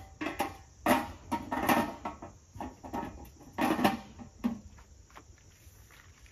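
Camp gear being handled on a folding table: a run of knocks, clanks and rattles, some with a short ring, stopping about four and a half seconds in.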